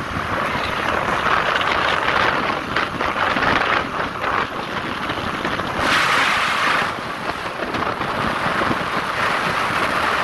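Wind buffeting the microphone of a moving vehicle, a steady rushing with the vehicle's rumble underneath, and a louder gust about six seconds in.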